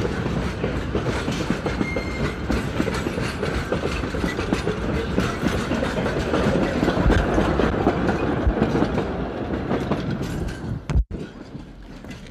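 Heritage passenger carriages of a steam train rolling past close by, their wheels clicking and rattling over the rail joints in a dense, loud, steady clatter. Near the end it drops suddenly to a much quieter, distant rumble as the last wagon moves away.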